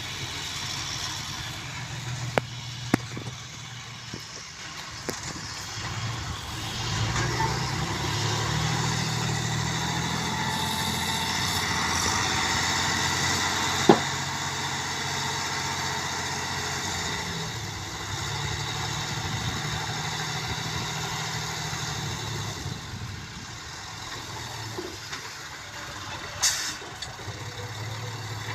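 Heavy vehicle's engine running steadily, growing louder for a stretch in the middle as if working harder, then settling back. There are a few sharp clicks near the start and one loud sharp knock about halfway through.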